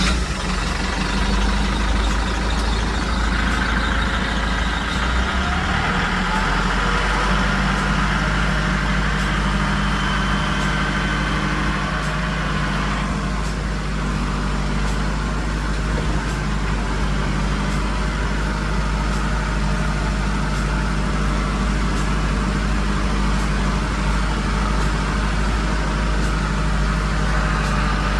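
A vehicle engine running steadily just after being started. Its low note shifts about six seconds in.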